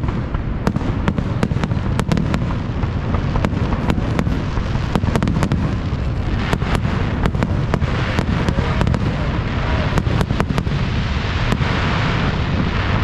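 Fireworks display: a rapid, irregular series of sharp bangs and crackles from aerial shells bursting, over a constant low rumble.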